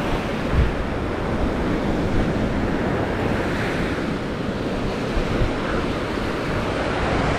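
Small sea waves breaking and washing up the sand at the water's edge, a steady rush of surf. Wind buffets the microphone with a low rumble and a few brief thumps.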